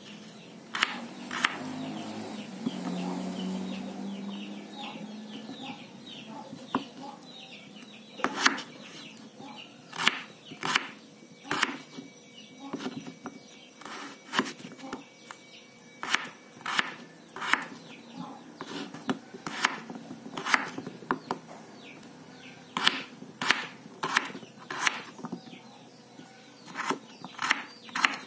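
Kitchen knife cutting a raw potato into cubes on a wooden cutting board, the blade knocking sharply against the board in irregular strokes. There are a few strokes at the start, a pause of several seconds, then steady chopping about one or two knocks a second.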